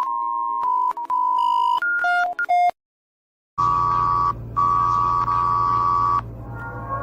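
Synthesized emergency-alert style electronic tones: a steady beep breaks into stuttering, glitchy beeps that jump in pitch and cut off abruptly. After a second of silence a louder electronic alert tone sounds over a low rumble, drops out briefly, and stops about six seconds in, giving way to a dark ambient drone.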